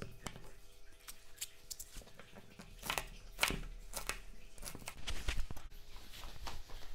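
Kitchen knife chopping green chillies on a plastic cutting board: irregular sharp knocks of the blade through the chilli and onto the board.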